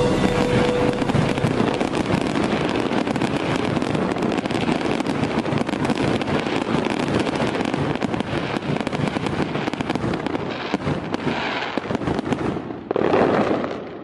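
Fireworks crackling in a dense, continuous rattle of pops, with one louder burst about a second before the end.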